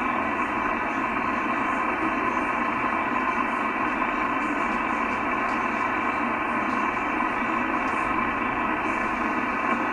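Steady hiss of band noise and static from a Yaesu FT-1000MP HF transceiver receiving on the 11-metre band with no station transmitting, cut off top and bottom like a radio voice channel and carrying a few faint steady tones.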